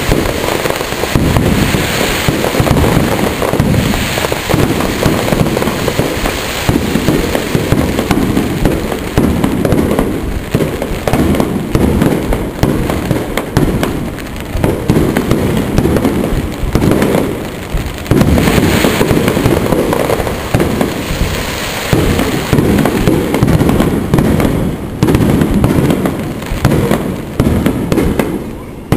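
Aerial firework shells bursting in a dense, unbroken barrage, the booms following one another so fast that they overlap, with only brief lulls.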